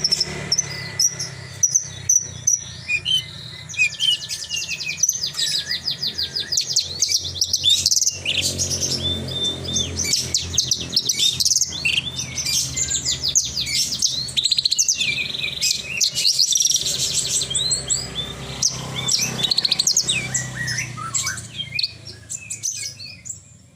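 Javan bush lark (branjangan) in full song ('gacor'), a long, varied stream of rapid trills, chirps and whistles that grows fainter near the end.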